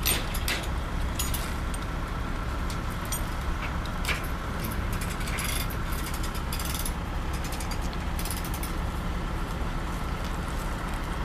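A heavily loaded multi-axle heavy-haul trailer rolling slowly past on pavement: a steady low rumble with scattered metallic clicks and rattles.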